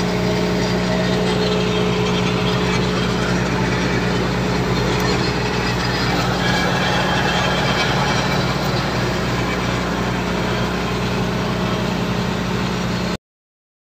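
Case A8000 sugarcane harvester's diesel engine running steadily at a low idle, a constant low hum that cuts off abruptly near the end.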